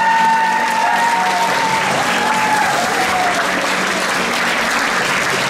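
Audience applauding steadily, while the last held notes of the performance music fade out in the first three seconds.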